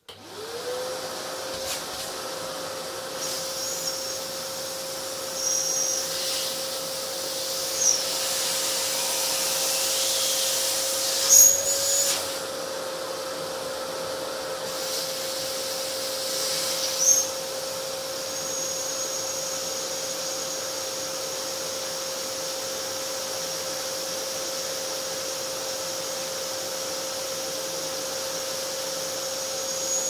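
Kärcher wet-and-dry vacuum cleaner switching on and spinning up at the start, then running steadily as it sucks the air out of a PVC inflatable boat. A few short knocks and brief high whistles come and go over its steady tone.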